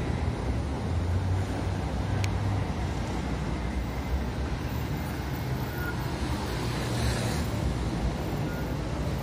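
City street traffic: a steady low rumble of cars and trucks on the road beside the pavement, with a single sharp click about two seconds in.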